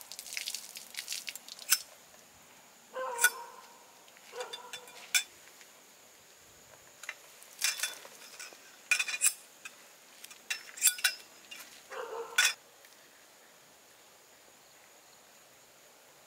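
Metal tent poles clinking and knocking together as they are pulled out and folded while a tent is taken down: a series of sharp clanks, some ringing briefly, that stop about three-quarters of the way through.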